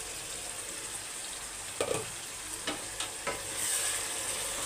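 Chicken, tomatoes and onions sizzling in a kadai as they are stirred with a spatula, with a few clinks of utensils against the pan around the middle. The sizzle gets louder in the last second or so.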